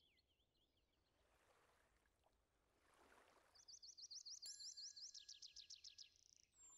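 Faint bird chirping: a rapid series of short rising chirps, about six a second, from about three and a half seconds in, after two soft whooshing swells of noise.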